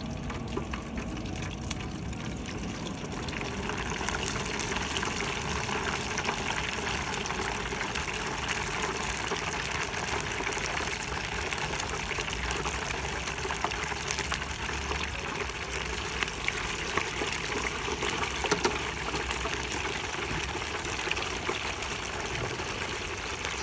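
Hot oil in a T-fal electric deep fryer sizzling and bubbling steadily with a fine crackle as battered pork chops go through their second fry, getting louder about three seconds in.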